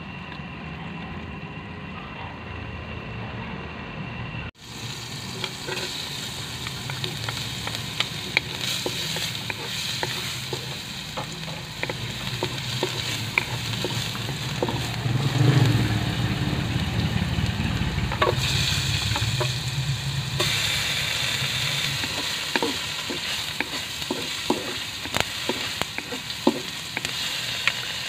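Chopped garlic sizzling in hot oil in a wok, stirred with a wooden spatula that scrapes and knocks against the pan in many short clicks. The first few seconds hold a lower, steadier sound that breaks off at a sudden cut.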